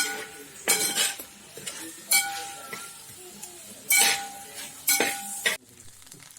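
A metal spoon clanking and scraping against a cooking pan while sliced onions are stirred, in a series of about six sharp ringing clinks spaced unevenly. It stops abruptly near the end.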